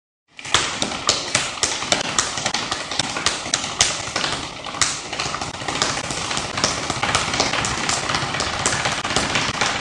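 Irregular sharp taps and knocks, several a second, over a dense steady hiss, starting about half a second in.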